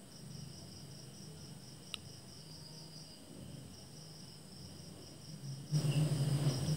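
Faint steady high-pitched insect chirring over a low hum, with a single small click about two seconds in. A louder low rustling noise comes in near the end.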